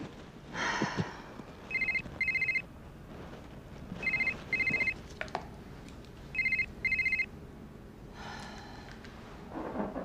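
Phone ringing with an electronic ringtone: three double rings, each a pair of short beeps, about two and a half seconds apart.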